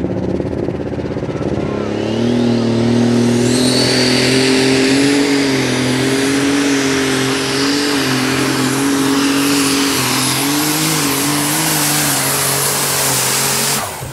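Turbocharged Super Stock pulling tractor engine at full throttle under load on a pull. It steps up in revs about two seconds in, with a high whistle rising over the next two seconds as the turbos spool up. The engine holds a high, slightly wavering note until it cuts off abruptly near the end.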